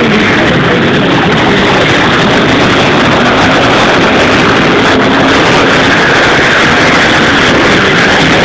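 Several short track racing motorcycles running at race speed, a loud, steady engine din.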